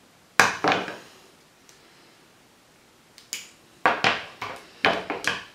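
Electrical insulation tape being pulled off the roll and torn: short sharp snaps, two about half a second in and a quick run of them in the last two seconds.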